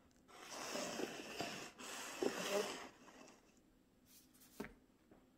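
Paper cups sliding and scraping across a countertop as they are shuffled: a hissing scrape lasting about two and a half seconds with a few light knocks. It is followed by a couple of faint taps about four and a half seconds in.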